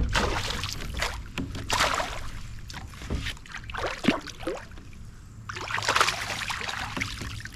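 Three bursts of splashing water with scattered knocks on a plastic kayak while a just-hooked fish is handled at the boat.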